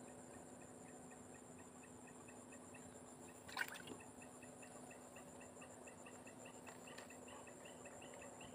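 Faint insect chorus: a steady high pulsing trill, with a chirping call repeating about three times a second that grows stronger in the second half. A single sharp click or knock comes a little over three and a half seconds in.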